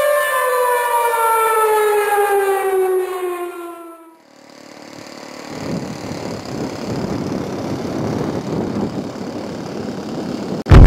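Air-raid siren winding down, its pitch falling steadily until it dies away about four seconds in. After a brief lull, a steady rushing noise builds, and a sudden loud burst starts right at the end.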